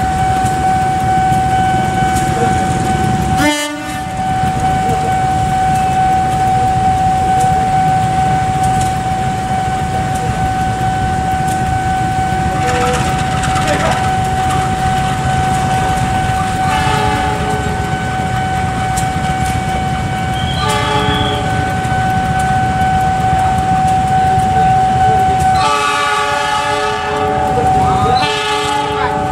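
Diesel-electric locomotive running as it shunts, with a steady engine rumble and a steady high whine. Its horn sounds in two strong blasts near the end, after shorter pitched bursts earlier.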